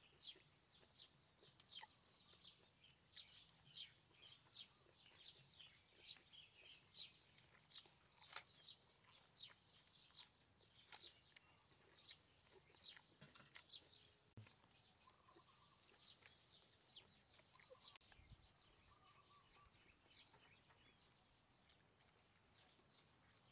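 Faint outdoor ambience of small birds chirping over and over, about two short high chirps a second.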